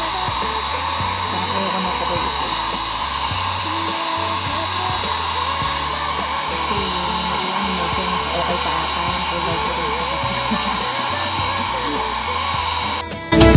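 Handheld hair dryer running steadily, blowing over hair, with faint background music underneath. Near the end the dryer noise cuts off abruptly and louder music takes over.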